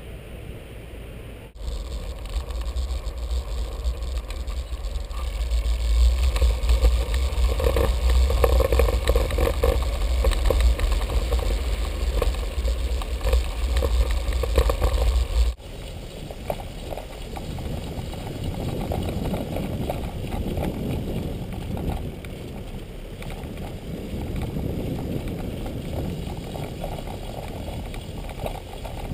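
Wind and rolling noise on the camera while riding a bicycle along a paved path. It starts as a loud low rumble, then changes suddenly about halfway through to a quieter, rougher rolling noise.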